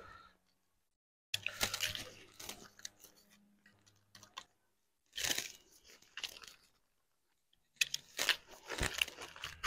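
Garlic cloves crushed in a handheld metal garlic press, three squeezes a few seconds apart.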